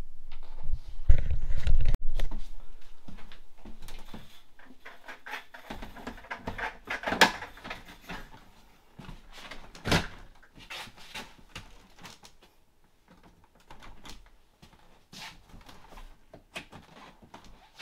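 Low handling rumble for the first two seconds, then scattered clicks and knocks as an add-on door blind and its retainers are fitted against a door frame by hand, with two sharper knocks about seven and ten seconds in.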